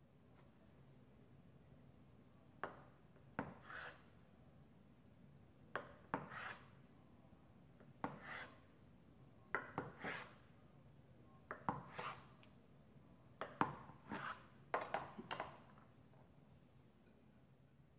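Kitchen knife slicing a block of pressed tofu on a plastic cutting board. There are about seven cuts, roughly two seconds apart, each a sharp tap of the blade on the board followed by a short scrape.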